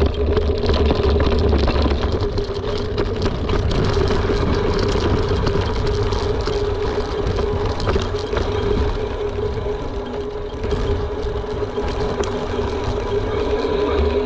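Mountain bike rolling fast downhill: wind buffeting the microphone, tyre noise with a steady hum, and many small rattles and clicks from the bike.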